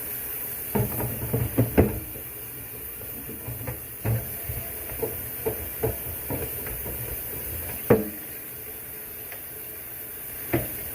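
Electric hot water kettle heating water, a steady hiss with irregular short knocks and clicks scattered through it; the water is coming up to a bubble.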